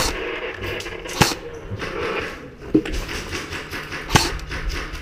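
Airsoft rifle fired in single shots: four sharp cracks, a second or so apart.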